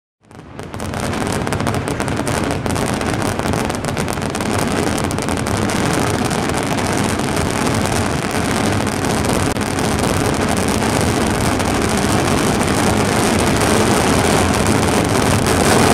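Dense, unbroken barrage of mascletà firecracker bangs merging into one steady roar, fading in over the first second.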